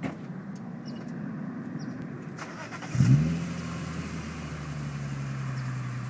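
BMW E46 M3's S54 straight-six starting through Supersprint race headers and an Eisenmann sport muffler: a brief crank, then it catches about three seconds in with a loud flare and settles into a steady idle whose pitch sinks slightly.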